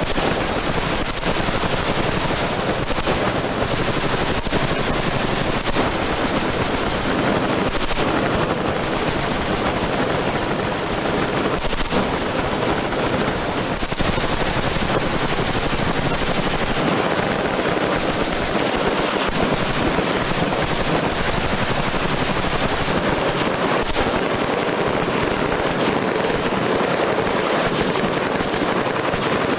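Continuous machine-gun fire from many guns at once, the shots overlapping without a break.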